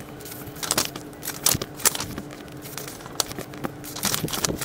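Paper pages of a teacher's manual being handled and turned, rustling and crackling in a quick, irregular string of crinkles.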